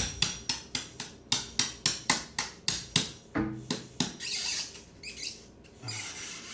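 Rapid hammer taps on a plastered wall, about four a second, chipping it loose. The taps give way to rough scraping and rasping of the plaster for the last couple of seconds.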